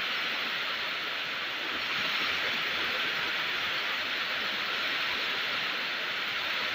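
Steady rain falling, an even hiss with no single drops or drips standing out.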